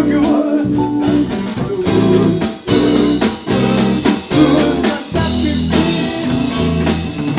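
Blues band playing an instrumental passage: guitar over drums and a low bass line.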